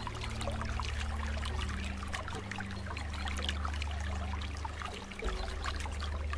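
Computer keyboard typing: quick, irregular key clicks over a steady low hum.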